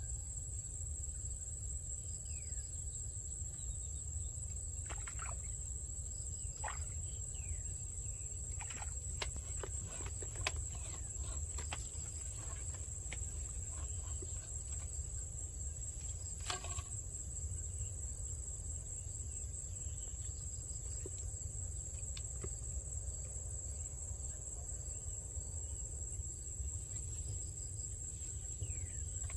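Steady high-pitched insect trill over a constant low rumble, with scattered clicks and a few short falling chirps.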